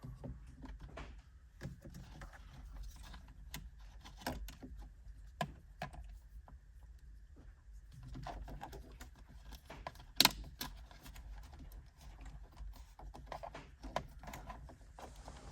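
Small plastic clicks and handling noises as a steering-wheel cruise control switch and its wiring are worked loose from the plastic trim, with one sharper click about ten seconds in.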